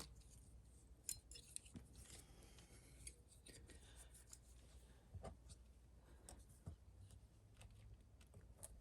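Faint, scattered clicks and scrapes of a hand tool working at a nail lodged in a tire's tread, trying to pull it out.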